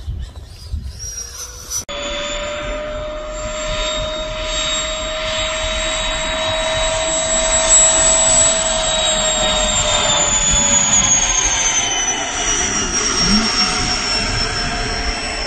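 Engine of a large RC scale propeller plane running with a steady high whine, the pitch sliding down over several seconds in the second half as it rolls along the runway.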